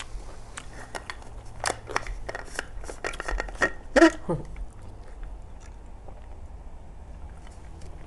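Drinking Sprite through a straw from a plastic cup: a close run of sharp clicks and crackles, then a louder gulp about four seconds in. It settles down after that.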